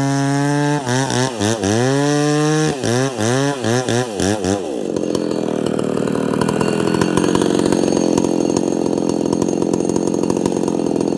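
McCulloch SP125 125cc two-stroke chainsaw with a 50-inch bar running at a steady high speed in the cut, then revved up and down about eight times, its pitch swinging. From about halfway through it drops to a fast, uneven idle.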